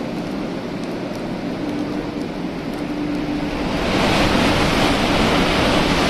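A Nozomi Shinkansen bullet train running through the station at speed without stopping: a rushing, hissing "shun-shun" noise that swells about three and a half seconds in and stays loud.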